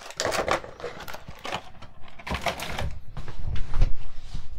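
Clear plastic packaging crinkling and rustling as it is handled, with a few dull thuds on the wooden tabletop about three and a half to four seconds in.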